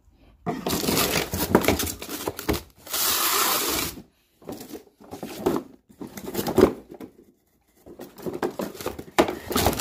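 A cardboard box is handled as a used CV axle is slid back into it, the cardboard rubbing and scraping in a string of noisy bursts. The densest burst comes about three seconds in.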